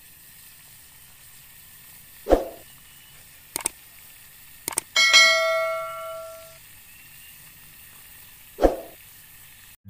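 Subscribe-button animation sound effects: a short whoosh-like hit, two quick clicks, then a bell ding that rings out for about a second and a half, and another short hit near the end.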